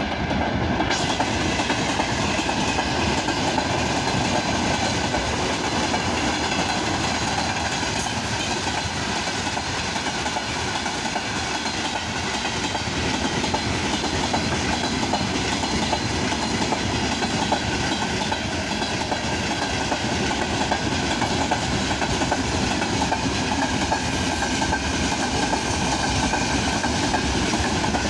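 Freight train of open gondola wagons rolling past, with the steady noise of wagon wheels running on the rails. A brief high squeal comes about two-thirds of the way through.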